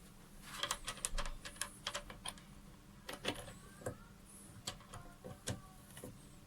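Faint, irregular clicks and taps, a dozen or so spread unevenly, with a couple of faint short squeaks and a low steady hum underneath.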